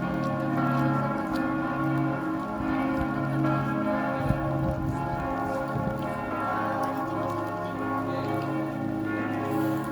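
Church bells from several churches ringing at once. Fresh strokes keep coming throughout, and the overlapping tones hang on into one continuous peal.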